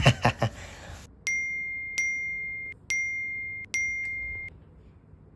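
A bright electronic chime struck four times in a little over three seconds, each strike a single clear ringing tone that is cut off short.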